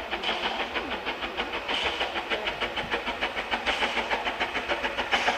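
Henschel steam locomotive of a park railway running under way, its exhaust beating in a rapid, even rhythm of short chuffs.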